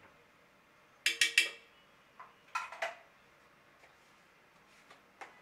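Metal utensil clinking against metal cookware: a quick run of three or four ringing clinks about a second in, a few more a second and a half later, and one more near the end.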